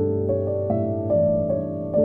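Instrumental background music, with a new sustained note coming in about every half second.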